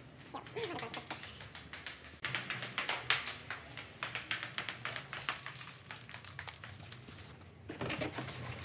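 Quick footsteps going down a staircase in flat slip-on shoes, an irregular run of light taps and knocks mixed with the rub of a hand-held phone, over a steady low hum.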